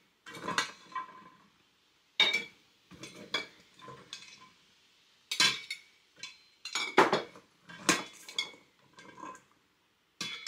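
Chopped carrots being scooped into glass canning jars: a dozen or so separate clinks and knocks of a utensil against the glass, some with a short glassy ring.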